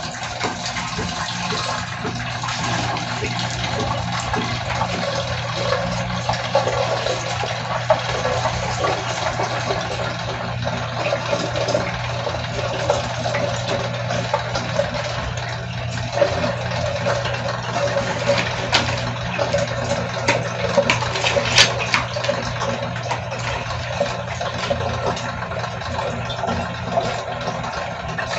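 Water being pumped into the two clear tanks of a level-control trainer, pouring and splashing steadily from the inlet pipes as the tanks fill, over the steady hum of the small electric water pump. A few sharp clicks come about three quarters of the way through.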